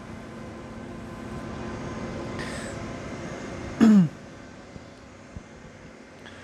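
Steady low hum of room noise, broken about four seconds in by one short, loud sound that falls in pitch.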